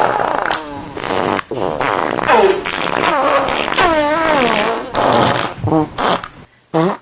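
A string of fart sound effects: long farts whose pitch wobbles and slides up and down, one after another with short breaks, then a couple of short ones near the end.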